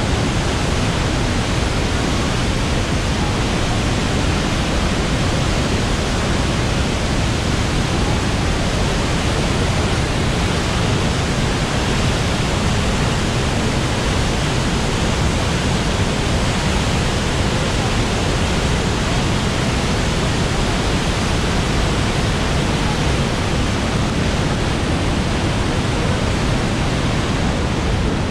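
Floodwater of the Orange River pouring over Augrabies Falls: a loud, steady, unbroken rush of thundering water.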